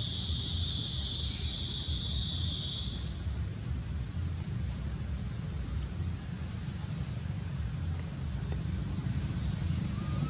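Insects buzzing steadily in a high band, changing about three seconds in to an even pulsing of roughly eight pulses a second, over a low background rumble.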